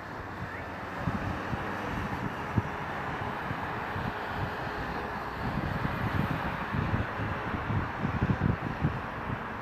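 Steady distant roar of an Airbus A350-900's Rolls-Royce Trent XWB jet engines, growing a little louder, with wind buffeting the microphone in gusts.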